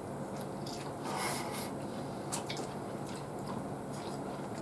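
Close-up mouth sounds of someone chewing a mouthful of rice, with a few light clicks about two and a half seconds in, over a steady low hum.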